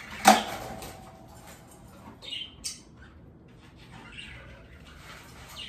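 A sharp metallic clank from a wire bird cage being opened and reached into, a little ringing after it, then softer rattles and a few short chirps from the caged birds.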